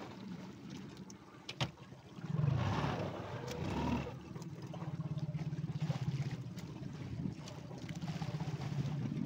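Fishing boat's engine running steadily with a low, evenly pulsing hum, with a sharp click about one and a half seconds in and a louder, noisier stretch a couple of seconds later.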